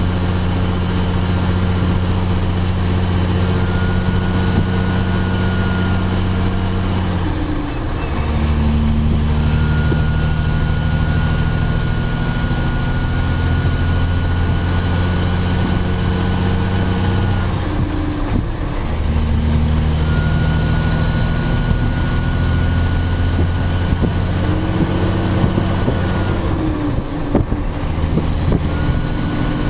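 Heavy diesel engine of a loaded Kenworth logging truck pulling steadily, with a high whine above it. The engine note breaks and changes pitch at three gear changes, about a quarter, two thirds and nine tenths of the way through, and each time the whine dips and then climbs back.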